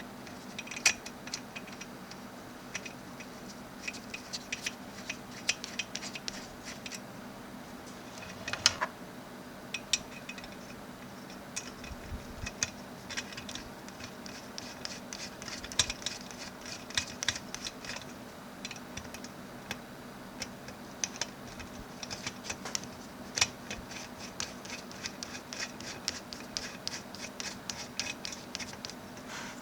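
Hands handling and fitting small computer parts, making many small clicks, taps and scratching sounds that come in quick clusters, with a faint steady hum underneath.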